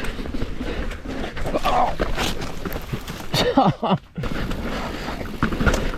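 Horse sounds: hooves clip-clopping, with a falling, whinny-like call about three and a half seconds in.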